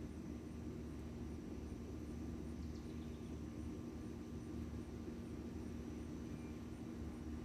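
Steady low hum and rumble, unchanging throughout, with only a couple of faint short high sounds.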